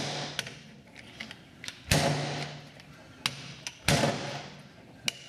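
Steel shaft of a half-inch click-type torque wrench slammed against the cast-iron anvil of a bench vise, deliberately bending the shaft. Heavy metal-on-metal strikes come about every two seconds, each with a short ring, and there are lighter clicks and rattles between them.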